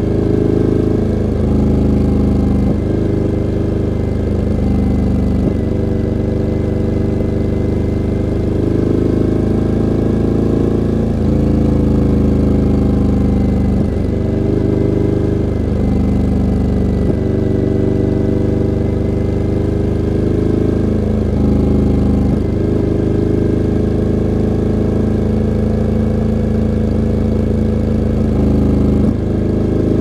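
Suzuki V-Strom 1000's 90-degree V-twin running through an LCI Parts Twin End carbon aftermarket exhaust. Its pitch dips and settles again several times.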